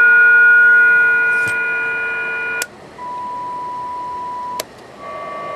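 A radio transceiver's speaker sounds steady whistle tones, the beat note of a test signal received on single sideband, whose pitch follows the clarifier tuning. At first several steady pitches sound together. About two and a half seconds in, a click cuts them off and one steady tone comes back at a new pitch. A second click two seconds later is followed by a slightly higher tone.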